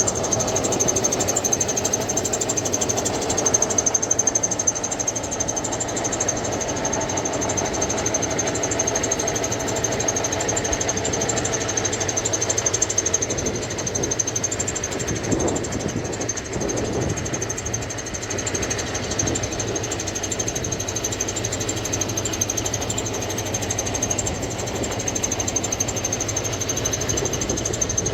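Water pump's motor running steadily, a continuous mechanical drone with a thin high whine over it.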